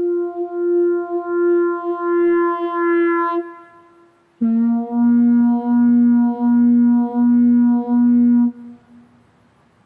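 Theremin music: one long held note with a reedy, buzzy tone fades out, then a lower note starts abruptly about four seconds in, swelling and dipping in volume in a slow regular pulse before fading near the end.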